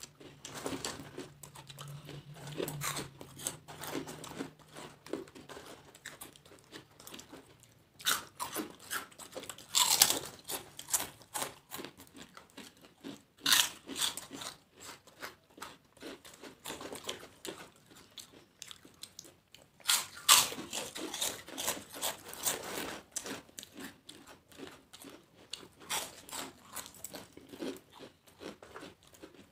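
Two people biting into and chewing crisp papads: dense, irregular crunching and crackling, with the loudest bites about ten and twenty seconds in.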